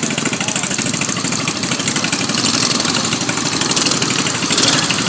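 Racing lawn mower's single-cylinder engine running steadily, with a rapid even firing rattle.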